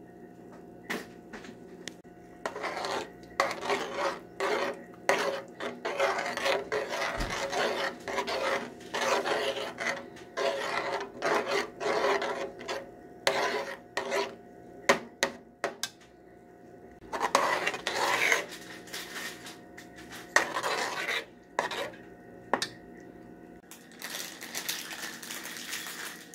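A spoon scraping and stirring in a metal pot of thick chili, in repeated strokes with short pauses and an occasional sharp clink of metal. Near the end a steady rushing noise sets in.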